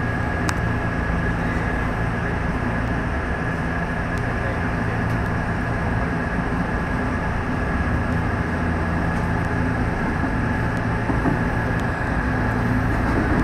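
Nishitetsu electric commuter train heard from inside the front car: steady running hum and rumble with a thin high tone as the train pulls away from a station and picks up speed.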